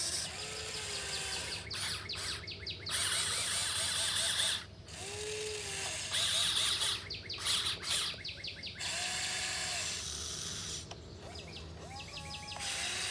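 Electric motors and gearboxes of a 1580 RC excavator whining and grinding in stop-start bursts as its functions are driven, the motor pitch rising and falling with each move.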